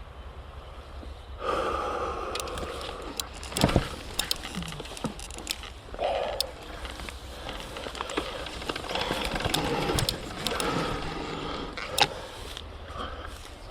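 Surron Ultra Bee electric dirt bike with a TORP TM50 Pro motor, ridden hard over a wet, rooty forest climb: the motor and drivetrain whine swells with the throttle, under a rattle of knocks from tyres and suspension over roots. Two sharp knocks stand out, about four seconds in and near the end.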